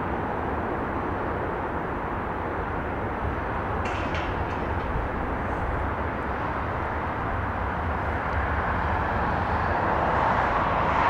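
Steam train approaching, a steady rumble that grows slowly louder.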